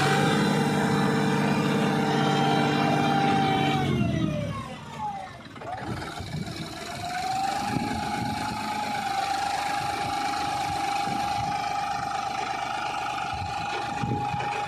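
John Deere 5050D tractor's three-cylinder diesel engine running at high revs while the tractor is stuck with a rear wheel buried in deep mud. The revs fall away about four seconds in, then climb again a few seconds later and hold high and steady.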